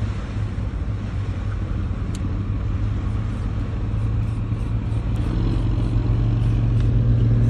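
Boat engine running steadily with a low hum, growing gradually louder, and a second, higher tone joining about five seconds in.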